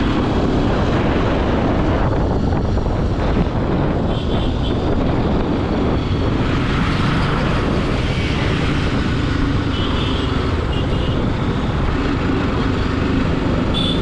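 BMW G310 RR motorcycle's single-cylinder engine running steadily, a constant drone.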